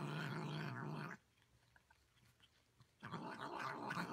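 A cat growling low and steadily. It stops about a second in and starts again near three seconds in.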